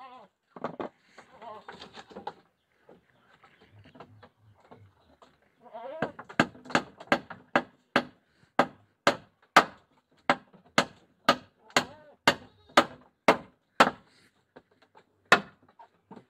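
Goats bleating. From about six seconds in comes a steady run of short, sharp sounds, about two a second, which stops a couple of seconds before the end.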